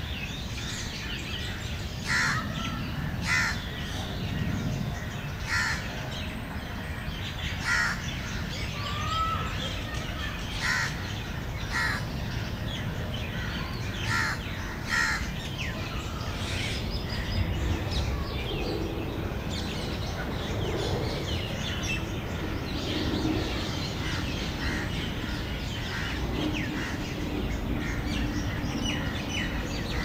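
Birds calling: about ten short, loud calls a second or two apart in the first half, then fainter, busier calls, over a steady low rumble.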